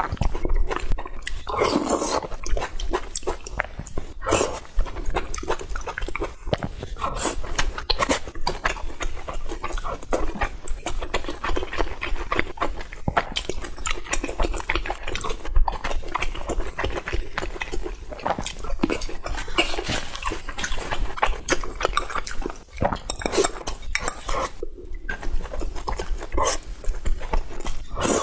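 A person eating close to the microphone: steady wet chewing and smacking mouth sounds, with occasional clinks of a bowl and utensils.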